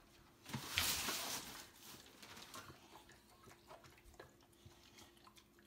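A boxer eating dry kibble from a plastic slow-feeder bowl: faint, irregular clicks and crunches of kibble and teeth against the plastic. A brief rattle about half a second in as the bowl of kibble is set down.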